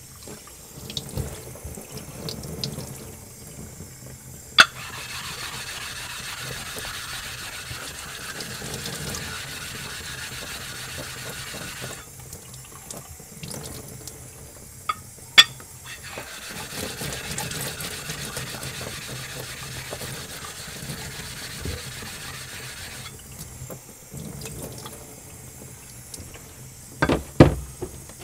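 Tap water running into a utility sink, with two spells of steady scraping, each about seven seconds long, as a diamond lapping plate is rubbed over a ceramic whetstone to flatten it. A few sharp knocks: one about four seconds in, one midway, and a quick cluster near the end.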